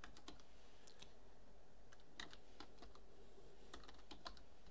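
Faint typing on a computer keyboard: irregular key clicks as a word is typed out.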